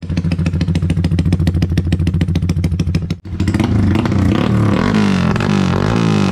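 Modified Yamaha Y15ZR's 150 cc single-cylinder four-stroke engine running loudly through an aftermarket exhaust on a dyno: first a steady, even beat, then after a brief break about three seconds in, its pitch rising and falling as it is revved.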